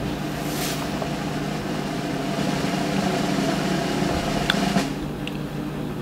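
Steady machine hum and hiss with a faint tick, dropping in level near the end.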